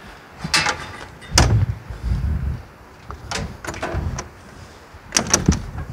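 Irregular knocks and clunks of metal parts being handled on an old excavator, with the heaviest thump about a second and a half in and a few lighter clanks after it.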